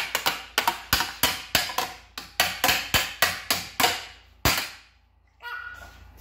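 A small wrench struck against the metal drawers of a rolling tool chest: sharp clanks, about three a second, stopping about four and a half seconds in.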